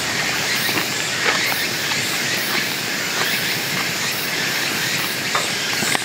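Hot pot simmering over a campfire: a steady sizzling hiss with a few faint crackles.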